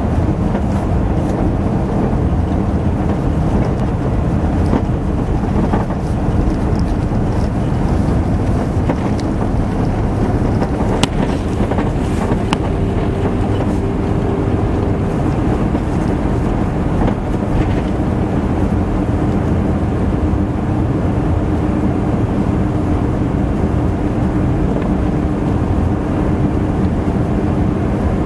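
Steady rumble of a car driving along a sealed road, tyre and engine noise heard from inside the vehicle.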